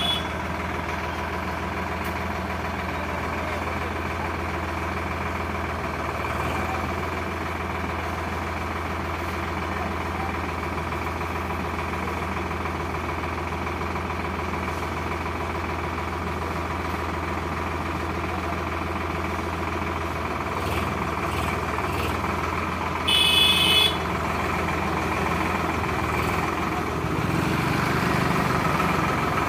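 Sonalika Tiger diesel tractor engine idling steadily, its low note shifting after about twenty seconds and growing a little louder near the end. A short high-pitched beep sounds once, about three-quarters of the way through.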